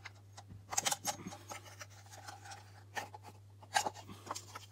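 Hard plastic parts of an opened watering timer being handled and lifted apart: a few light clicks and scrapes of plastic on plastic, about a second in, again at about three seconds and just before four seconds.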